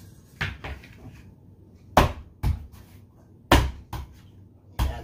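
A series of about seven sharp, irregular knocks and thumps as outdoor furniture parts are handled and fitted together during assembly, the loudest two about two and three and a half seconds in.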